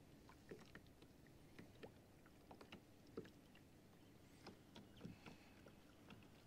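Near silence: faint, irregular light ticks and lapping of water against a kayak's hull.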